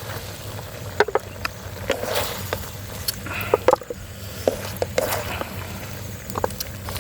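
A person eating pork leg, with irregular wet chewing and mouth clicks and smacks.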